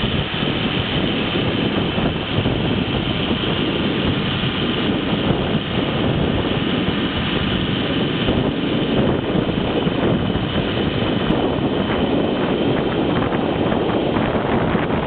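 John Deere 4450 tractor's turbocharged six-cylinder diesel running steadily while driving a Red Devil snowblower, engine and blower together as one loud, even noise.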